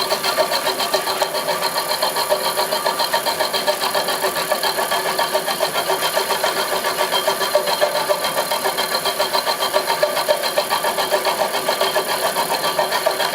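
Homemade milling machine running steadily, its motor and drive giving a continuous hum with a rapid, even pulsing.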